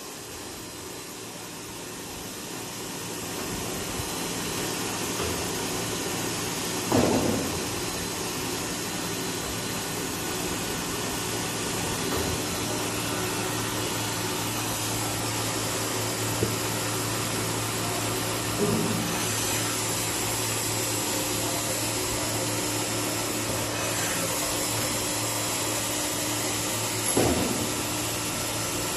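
XY-AI-400 automatic band saw cutting machine for toilet paper logs running with a steady machine hum that builds up over the first few seconds. A few sharp knocks stand out above it, the loudest about seven seconds in and near the end.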